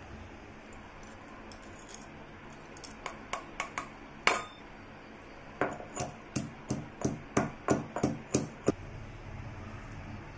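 Stone pestle pounding in a stone mortar: a few scattered knocks, then a steady run of about three strikes a second that stops shortly before the end.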